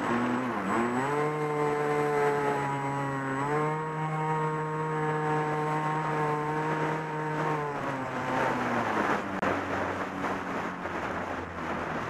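RC airplane's motor and propeller from an onboard camera, a steady whine that steps up in pitch twice under throttle, then winds down about eight seconds in. After that, wind rushing over the microphone is left.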